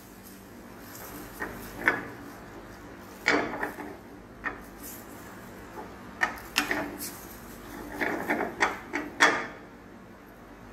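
Wooden spoon stirring spaghetti in a stainless steel pan, scraping and knocking against the metal at irregular moments, with a cluster of knocks in the second half.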